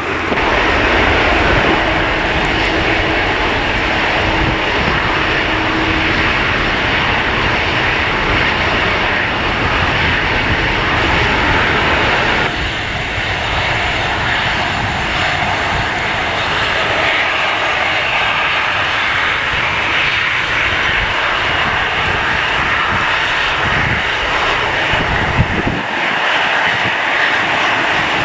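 Airliner engines running loud and steady at close range, with strong wind rumbling on the microphone.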